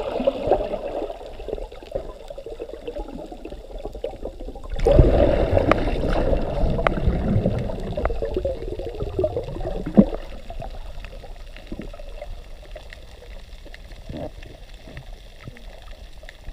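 Underwater water noise picked up by a camera in its waterproof housing: dull, low swishing of moving water with scattered clicks and knocks, louder for a few seconds starting about five seconds in, and one sharp click about ten seconds in.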